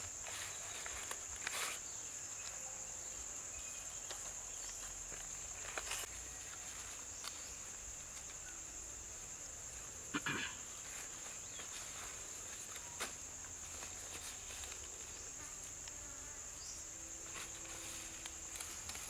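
Steady high-pitched insect chorus, with a few brief rustles and crackles of banana leaves being handled, the loudest about ten seconds in.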